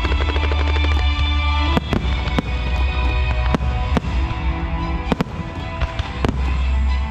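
Aerial firework shells bursting in the sky, about seven sharp bangs scattered through the middle of the clip, over bass-heavy music.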